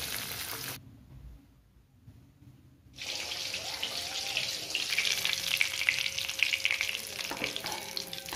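Batter-coated pomfret deep-frying in hot oil in a kadai: a steady sizzle full of crackles. The sizzle drops away for about two seconds near the start, then comes back louder and more crackly from about three seconds in.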